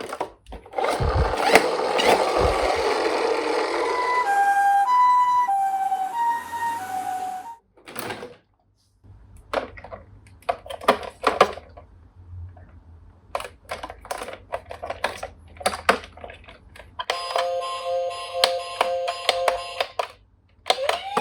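Electronic toy sirens from battery-powered toy police cars and ambulances. A loud rushing noise comes first, then a two-tone hi-lo siren for a few seconds. Plastic clicks and clatter follow, and a second siren pattern of several steady tones plays near the end.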